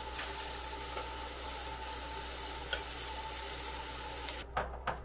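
Beef sizzling on an electric tabletop grill plate, a steady hiss. About four and a half seconds in it drops away sharply, leaving a few light clicks.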